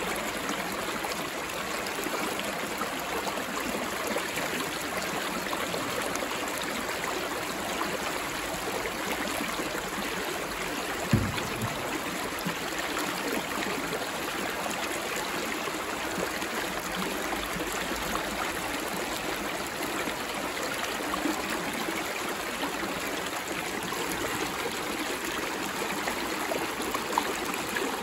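Shallow creek water rushing and rippling steadily over a rocky riffle, with one brief low thump about a third of the way through.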